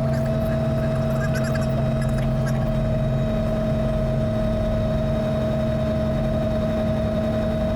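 Robinson R44 Raven I helicopter's Lycoming O-540 piston engine and rotor system running steadily on the ground: a constant drone with a high whine that drifts slightly lower, and a low hum that fades out a few seconds in.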